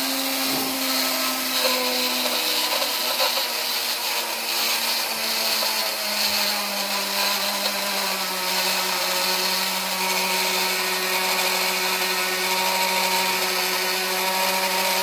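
Small electric blade grinder running steadily, grinding granulated sugar into powdered sugar. Its motor whine drops a little in pitch a few seconds in, then holds.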